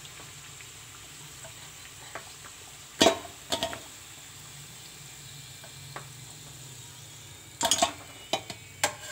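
Hot oil sizzling steadily in a frying pan as fried kachoris are lifted out with a spatula. The spatula knocks sharply on the pan twice about three seconds in and several times near the end.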